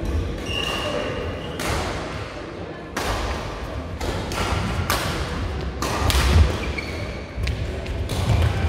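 Badminton rally: rackets striking the shuttlecock about five times, one to two seconds apart, with players' feet thudding on the court floor between the hits.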